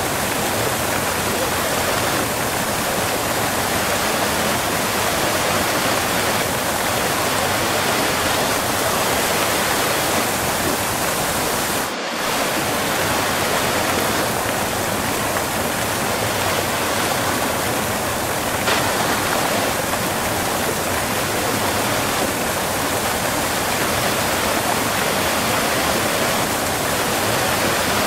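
Close-up waterfall: a steady, dense rush of falling and splashing water, with a momentary dip in level about halfway through.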